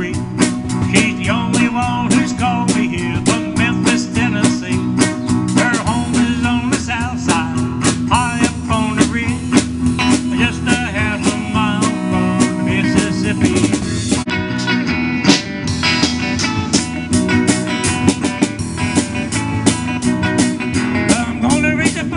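Live band music: electric guitar playing over a drum kit keeping a steady beat, in a blues-rock style.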